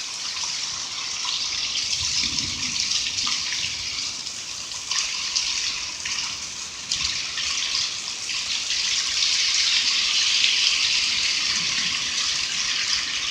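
Heavy rain mixed with small hail pouring down, a dense steady hiss with a few sharper ticks.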